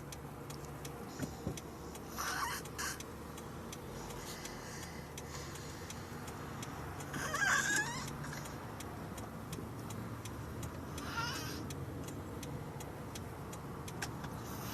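Snoring: a noisy, whistling breath about every three to four seconds, the loudest near the middle, with faint regular ticking underneath.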